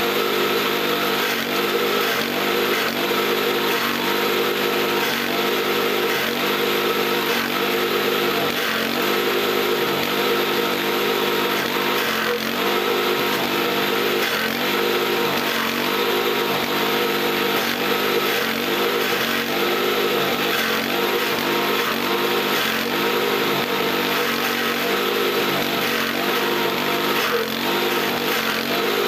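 Small engine driving a forage chopper (chaff cutter) as green leafy fodder is fed through and cut. It runs steadily and loud, its note wavering slightly over and over as it takes the load.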